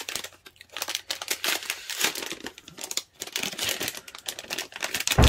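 Plastic wrapping crinkling as it is handled and pulled open, a dense run of irregular crackles, with a single thump near the end.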